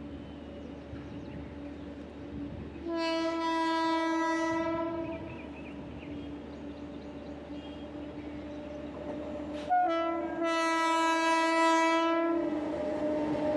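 Indian Railways locomotive horn sounding two long, steady blasts about five seconds apart, the second slightly louder, over the steady running noise of a passenger train.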